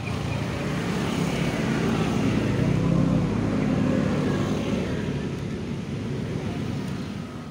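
A motor vehicle running nearby on the road, its engine noise swelling about halfway through and then slowly fading.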